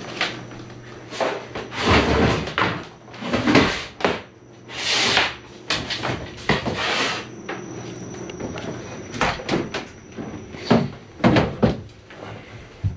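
Handling noise inside a small fiberglass sailboat cabin: knocks, clunks and scraping rustles as a hand-held LED light bar and the body move against the hull and bunks. There are several longer rushing scrapes in the first half and quicker sharp clicks and knocks later, over a faint steady high whine.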